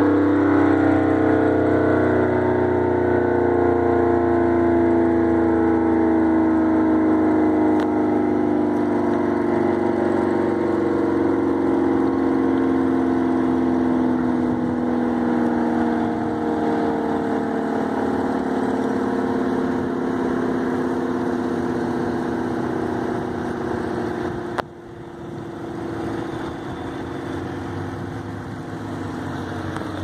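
ACA Allertor 125 outdoor warning siren winding down, its steady wail slowly falling in pitch. A sharp click comes near the end, with a brief drop in level.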